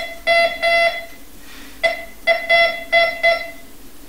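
Metal detector sounding short, buzzy electronic beeps as its search coil is passed over a knife: three in quick succession, then a second run of about five from a little under two seconds in. The beeps signal that it has detected the metal.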